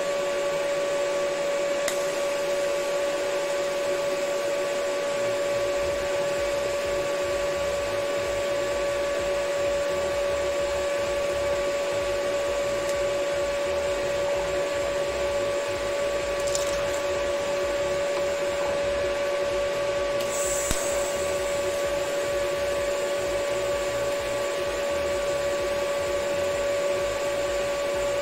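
TIG welding set running during welding of a steel tube stand: a steady fan-like hum with a constant tone.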